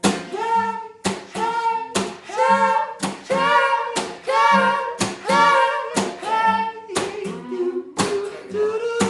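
Wordless gospel-style vocal ad-lib: held, bending sung notes over sharp rhythmic hand claps about once a second.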